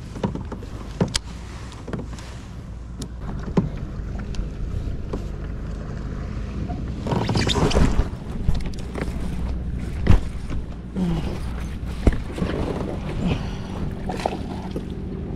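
Sounds of fishing from a small boat on the water: scattered sharp knocks and clicks of handling aboard the hull over a steady bed of water and wind noise, with a louder rustling stretch about halfway through.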